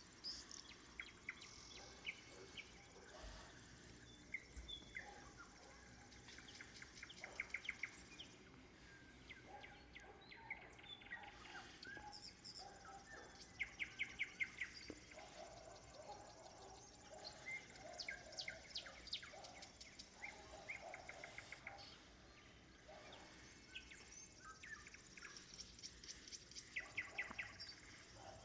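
Nightingale singing: phrases of fast repeated notes, each phrase about a second long and coming every few seconds, with fainter chirps of other birds in between.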